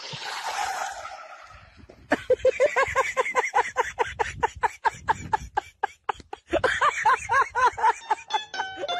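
High-pitched laughter in fast repeated bursts, about four a second, breaking off briefly around the middle and then resuming. It follows a hissing rush that fades out over the first second or so.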